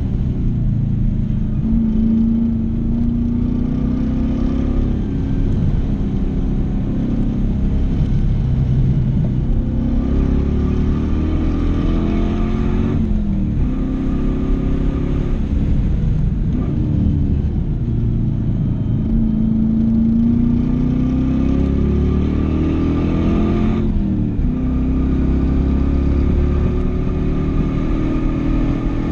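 LS1 V8 engine in a BMW 318ti driven hard on a racetrack, revving up through the gears again and again, with the pitch climbing and then dropping abruptly at each shift or lift, three times most plainly.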